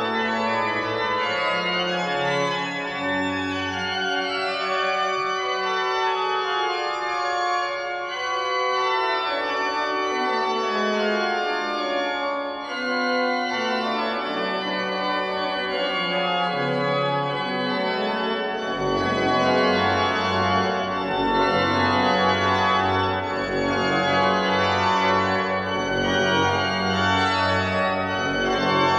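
Church pipe organ playing polyphonic music with several moving lines. About two-thirds of the way through a deep pedal bass comes in, and the sound grows fuller and slightly louder.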